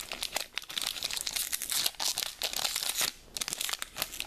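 Foil wrapper of a Pokémon trading card booster pack crinkling and tearing as it is opened by hand, a dense crackle with a short pause a little after three seconds.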